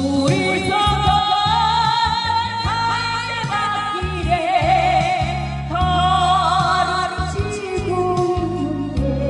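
Trot music: a pitched melody line with vibrato carried over a backing band with a steady bass beat, in the song's instrumental stretch between sung verses.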